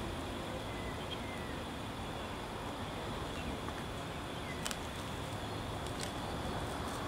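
Steady outdoor background noise: a low rumble under a soft hiss, with a couple of faint short bird chirps and a few light clicks.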